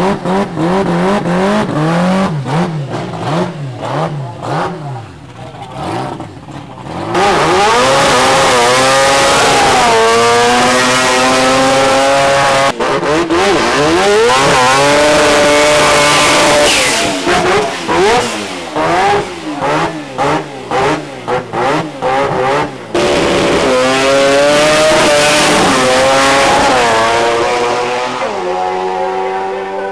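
Twin-turbo Mazda 26B four-rotor rotary engine in a drag car, revving in sharp, crackling blips at first. It then runs flat out for long loud stretches, its pitch climbing and dropping back at each gear change.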